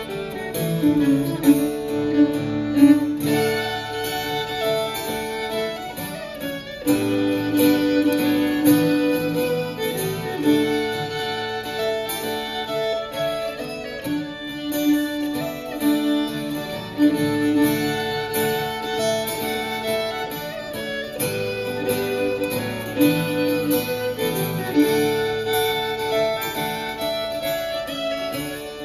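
A contemporary Swedish folk tune played live on acoustic instruments: a sustained melody line over a plucked string accompaniment.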